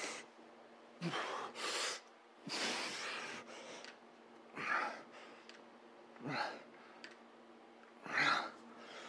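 A man breathing hard from exertion during a heavy set of one-arm dumbbell curls: about six sharp, forceful breaths, one every second or two.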